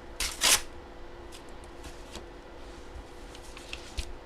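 Handling noise from someone at a table: two quick loud swishes of rustling just after the start, then faint scuffs and a sharp click near the end, over a steady faint hum.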